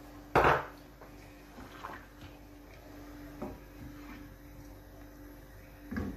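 A sharp knock about half a second in, then a wooden spoon stirring tamarind sauce in a stainless steel pan, giving a few faint taps, over a steady hum.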